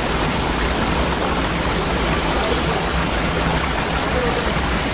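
Steady rush of a waterfall and the shallow stream flowing below it.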